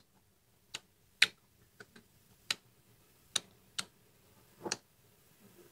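Close-up chewing of crunchy food in the mouth: about eight sharp, crisp crunches, irregularly spaced.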